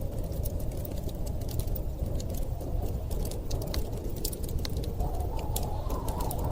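Wood fire crackling with frequent short pops, over a steady low rumble of storm wind.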